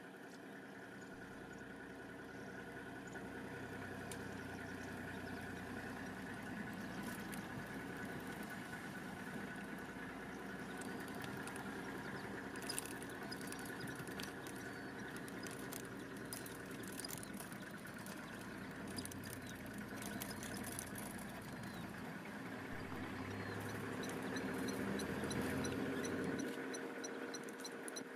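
Vehicle engine idling steadily, a low hum that swells and eases a little. Near the end a faint run of quick, high chirps comes in.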